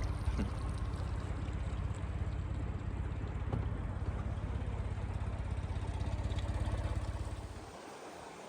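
Boat engine running steadily while cruising: a low, even rumble with water and hull noise over it. It stops suddenly near the end, leaving a faint, even hiss.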